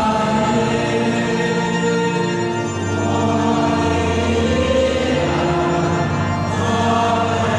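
Church music: a congregation singing over long, held chords, with a deep bass note coming in about three seconds in.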